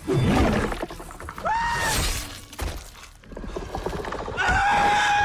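Action-film sound mix: crackling and shattering effects under a falling cry at the start, then two long, high, held cries, the second running through the last second.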